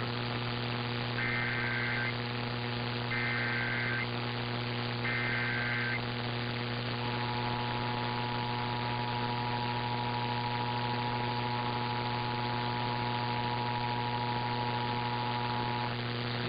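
Emergency Alert System test received off the air: three short bursts of digital data tones (the SAME header), then the two-tone attention signal held for about nine seconds. A steady electrical hum and static run underneath.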